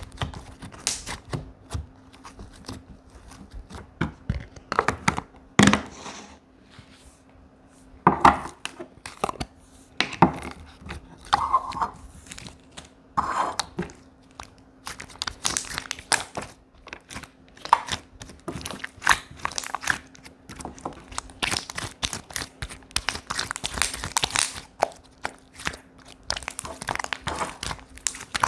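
Slime being squished and stretched by hand: dense, irregular crackling, popping and clicking, over a faint steady hum.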